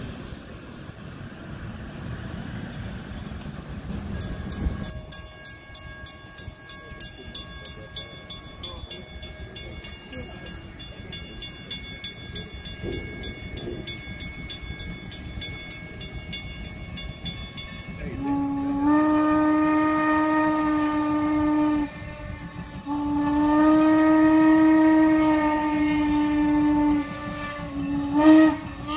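A steam locomotive's whistle blowing two long blasts, the first starting about two-thirds of the way in, then a short one near the end, after a quieter stretch of low rumbling.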